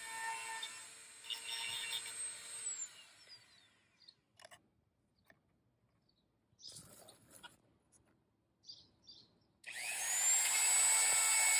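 Dremel 4000 rotary tool with a ceramic grinding bit running at a steady high pitch while sharpening chainsaw chain teeth, then switched off about three seconds in and winding down with a falling whine. After a few seconds of faint handling sounds it is switched on again near the end, spinning up with a rising whine and running loud and steady.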